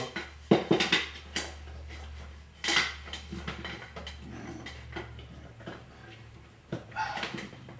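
Scattered clicks and clunks of handling as a coffee maker's power cord is plugged into a socket, with light clatter, over a faint low steady hum.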